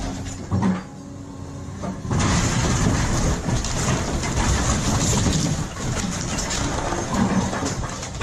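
Heavy machinery engine running. It is steady at first, dips briefly, then from about two seconds in gets louder with a dense rumbling noise.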